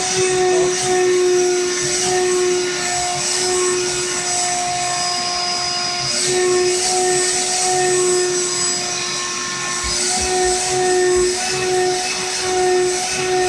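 Vacuum cleaner running while its nozzle is drawn over a dog's coat: a steady motor whine at one pitch over a hiss of rushing air, wavering a little in loudness as the nozzle moves.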